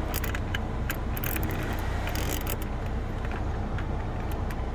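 Heater blower fan of a Renault 19 blowing air into the cabin while the heater control knobs are clicked round, over the steady low hum of the idling diesel engine.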